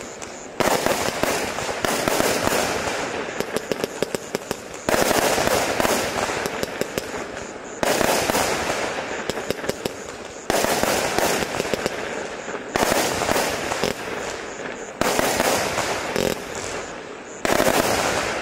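Black Cat Space Race single-ignition firework firing shells: about eight loud bursts two to three seconds apart, each trailing off in a fading crackle of small pops.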